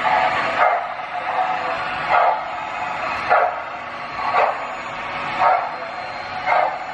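A dog barking repeatedly, about once a second, over a steady background sound.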